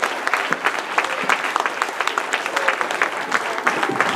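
Audience applauding: many people clapping steadily without a break.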